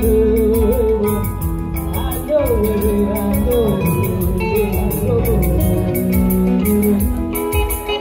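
Live band music: a woman singing into a microphone over electric guitar, with percussion keeping a steady beat.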